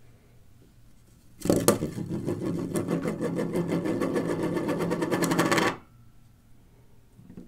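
Small wheel of white LEGO plates spinning and wobbling down on a tabletop like a spun coin: a fast plastic rattling and clicking against the surface. It starts suddenly about one and a half seconds in and cuts off abruptly as the wheel falls flat.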